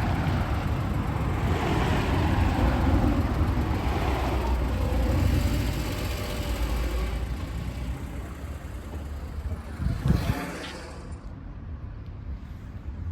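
A vehicle running with a steady low rumble and some revving, fading over the second half, with one short sharp sound about ten seconds in.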